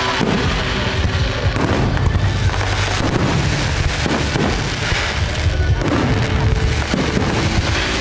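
Fireworks display, shells bursting one after another in a dense run of bangs, with music playing underneath.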